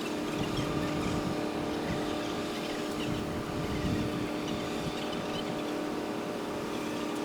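Boat engines running with a steady drone and hum.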